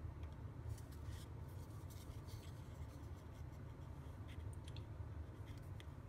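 Faint handling noise: a circuit board being turned over in the hands, with light rubbing and a few small clicks, over a steady low hum of room noise.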